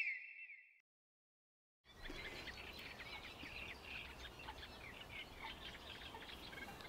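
Faint birdsong, many short chirps, over a low background rumble of outdoor ambience, starting about two seconds in after a short silence. At the very start the ringing tail of an electronic logo jingle fades out.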